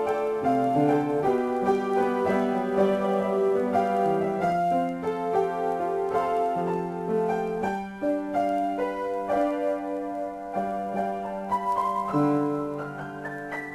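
Solo piano improvisation: held chords in a moderate tempo with a melody over them, turning near the end into a rising line of notes.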